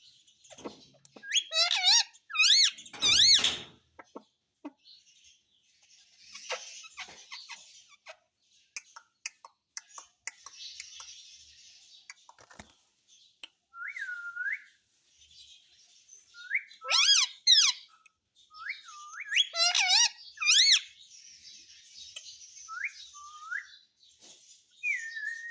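Pet parrot whistling and chirping: loud, shrill whistled calls that swoop up and down in pitch come in clusters near the start, about two-thirds of the way in and shortly after, with short chirps and soft chattering between them.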